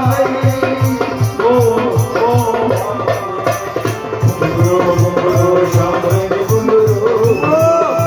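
Kashmiri bacha nagma folk dance music: a gliding melody over a quick, steady drum beat with a shaker-like rattle keeping time.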